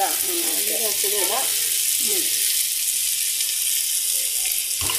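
Sliced onions, green chillies and curry leaves sizzling steadily as they sauté in coconut oil in a stainless steel wok.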